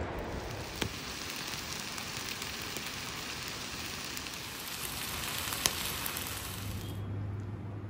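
Pan of minced meat and vegetable stew simmering over an open wood fire: a steady bubbling sizzle with two sharp crackles from the burning wood, one about a second in and one near the end. The sizzle cuts off suddenly shortly before the end.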